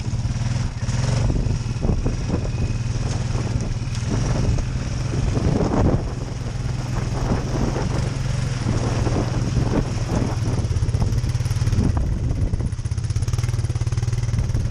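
Honda ATV engine running steadily at low speed.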